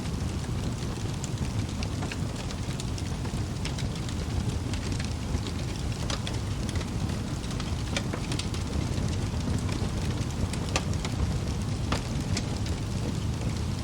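Wood fire burning in a fireplace: a steady low rush of flames with scattered crackles and pops from the burning logs, several a second at times.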